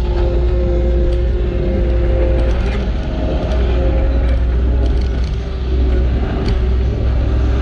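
Diesel engine of an earthmoving machine running steadily under load, a deep rumble with a steady whine over it.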